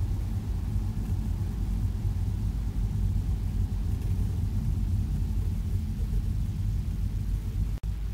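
Steady low rumble of road and engine noise heard inside a moving car's cabin, cut for an instant near the end.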